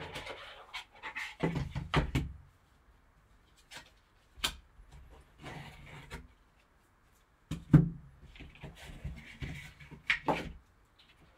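Cardboard card box being handled and opened: rubbing and scraping, a foam insert pulled out, and a few sharp clicks and knocks, the loudest one a little past halfway.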